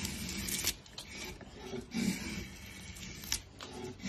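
Curved drawknife blade shaving a pine board: several pulling strokes, each a dry scraping hiss as a curled shaving peels off the wood, with a few sharp ticks.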